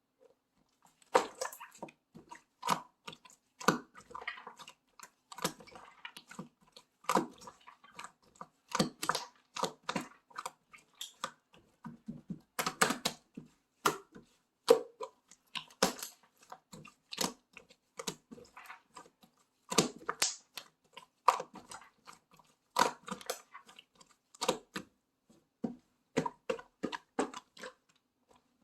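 Slime being squished, pressed and stretched by hand, making irregular sticky clicks and short crackling pops.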